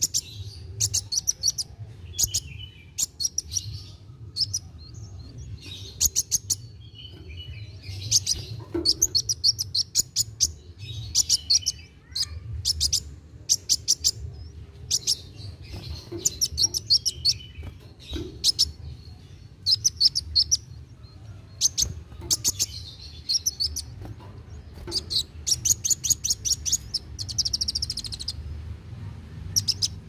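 Caged male kolibri wulung sunbird singing: short bursts of rapid, high-pitched stuttering notes, repeated every second or two, over a steady low background rumble.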